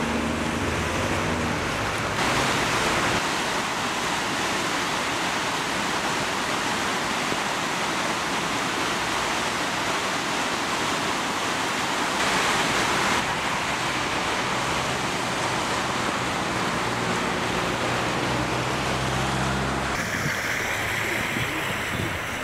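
Heavy rain and fast-running floodwater making a steady, dense rush of water noise that shifts in tone a few times. A low hum lies underneath briefly at the start and again near the end.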